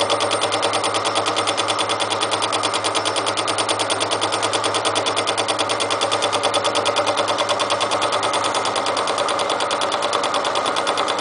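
Milling machine spindle turning a fly cutter over steel rail, the table wound back slowly by hand so the tip takes a light finishing pass. A fast, even clatter over a steady motor hum.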